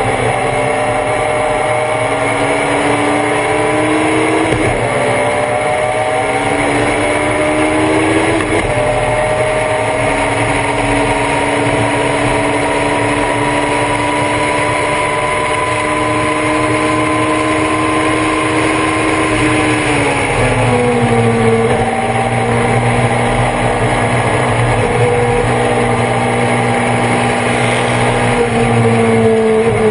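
Thunder Roadster race car's engine heard from on board, pulling hard through the gears: the pitch climbs and breaks back at upshifts about 4 and 8 seconds in, then climbs slowly at high revs for about ten seconds. The pitch drops about 20 seconds in and falls again near the end as the car slows for corners.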